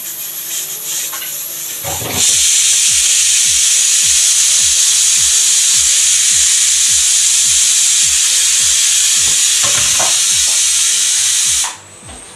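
Aluminium stovetop pressure cooker whistling: steam jetting out past the lifted weight valve in a loud, steady hiss, a sign the cooker is at full pressure. It hisses more softly for about two seconds, then loudly for about ten seconds, and cuts off near the end.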